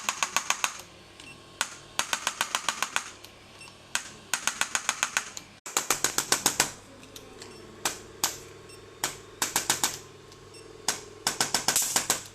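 Chiropractic adjusting instrument firing in rapid runs of sharp clicks, about eight to ten clicks at roughly ten a second, each run followed by a short pause as it is applied to the joints.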